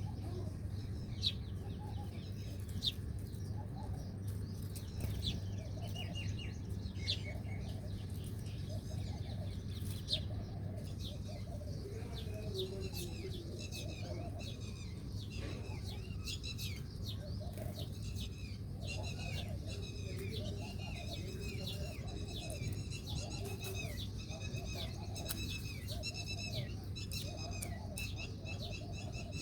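Small birds chirping: scattered sharp chirps at first, then from about halfway a steady run of quick, falling chirps, with a lower call repeating about once a second. A low steady hum lies beneath.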